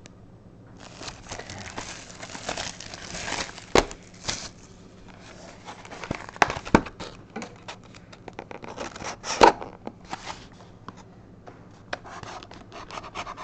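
Packaging on a sealed box of hockey trading cards crinkling and tearing as the box is opened by hand. The rustling starts about a second in, with many sharp crackles and snaps, and eases briefly near the end before picking up again.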